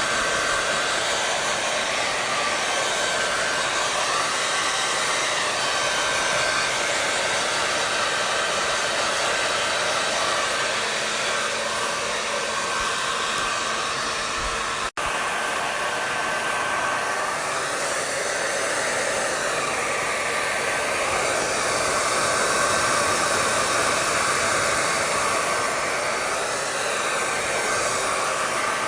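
Hair dryer running steadily: an even rush of blown air with a faint steady whine, broken only by a split-second dropout about halfway through.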